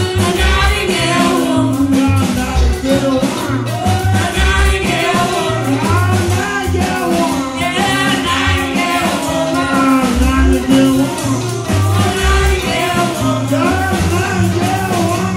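A live band plays a rock-and-roll number: acoustic and electric guitars, a pulsing bass line and drums, with a wavering lead line over the top.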